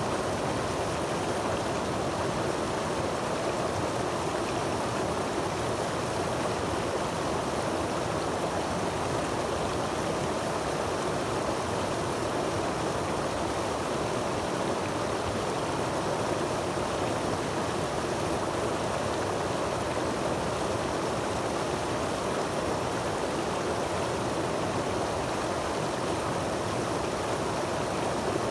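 Deep Creek's water falling through rocks in a small cascade into a pool: a steady rushing with no let-up.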